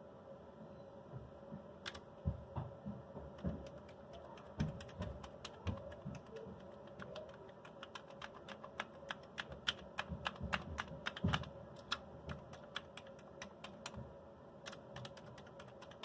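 Keys of a Commodore 128 keyboard being pressed one after another to test them after cleaning: a run of plastic key clicks, spaced out at first and then coming quicker from about halfway through.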